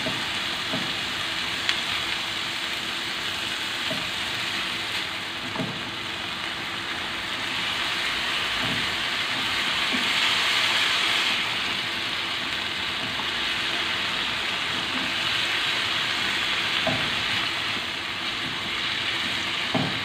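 Diced tomato, green bell pepper and onion sizzling steadily in hot oil in a non-stick frying pan, a little louder about halfway through. The utensil stirring them gives a few faint taps against the pan.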